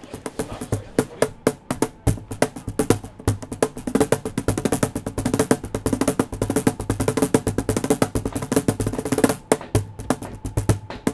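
Cajón played by hand: a fast, dense rhythm of sharp slaps and deeper thumps on the wooden box drum.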